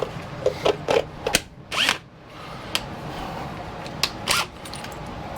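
Cordless drill being handled: a series of sharp clicks and knocks, with a short rising whine about two seconds in as its motor is briefly run.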